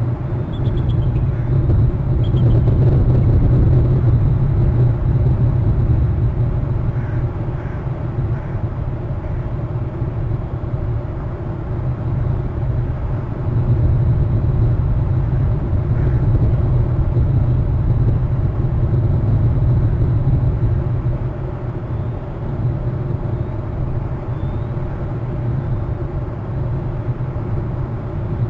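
A steady low rumble on an outdoor nest-camera microphone, with a few faint high chirps near the start.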